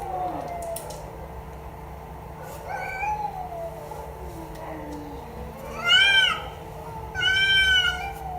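A cat meowing several times. The two loudest meows come about six and seven and a half seconds in, with fainter calls before them.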